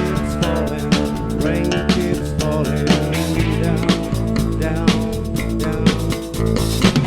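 Rock band playing live without vocals: electric guitar over bass and a drum kit keeping a steady beat.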